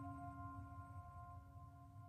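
Quiet ambient background music: a few sustained, bell-like ringing tones slowly fading away.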